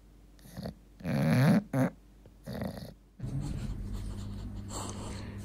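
English bulldog making a few short throaty vocal sounds, the loudest about a second in; from about three seconds in, a steady low hum.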